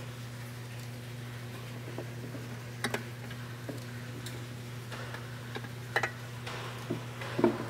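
Scattered light clicks and knocks as a Honda Trail 70's fuel tank and its rubber hoses are worked down into the frame, the loudest just before the end, over a steady low hum.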